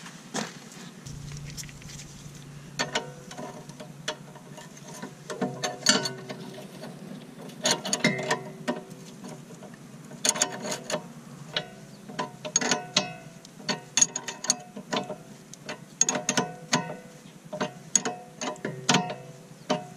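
Ratcheting wrench turning the nut on a sway bar end link: short bursts of metallic clicking, each with a brief ring, every second or two.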